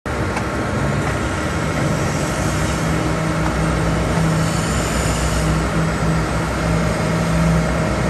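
Concrete pump truck's diesel engine running steadily, a continuous low drone with a held hum.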